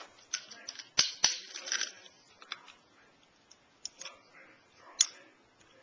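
Metal Beyblade spinning tops clashing and scraping in a plastic stadium: sharp clacks about a second in and again near the end, with brief grinding scrapes in between.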